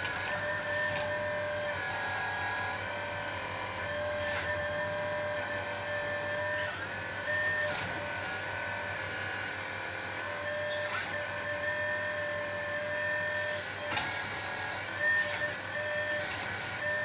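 1/12 scale RC excavator's small electric drive whining steadily as the boom, arm and bucket are worked from the transmitter, its pitch dipping briefly each time a movement loads it. A few sharp clicks sound along the way.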